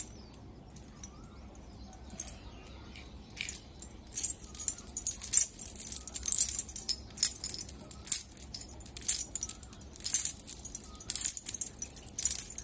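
Lead sinkers on the skirt of a nylon cast net clinking and jingling against each other as the net is gathered up by hand, along with rustling of the mesh. The clinks come irregularly, sparse at first and then frequent from about four seconds in.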